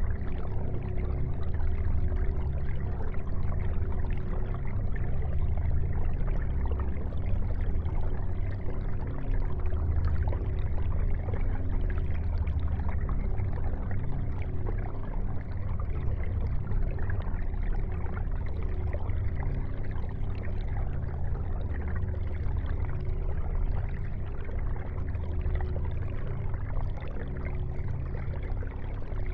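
Aquarium filter running: water trickling and pouring steadily over a low, constant hum.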